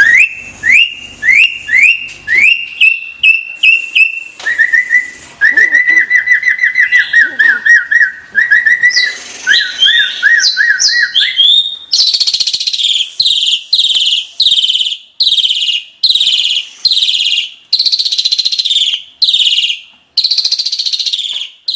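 Asian pied starling (jalak suren) singing a varied song. It starts with a run of short rising whistles, moves into a fast trilling warble, and from about halfway on repeats louder, higher, rougher notes about one and a half times a second.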